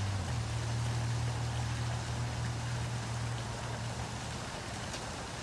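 Outdoor background: a steady low engine hum under an even hiss, the sound of traffic on a nearby road.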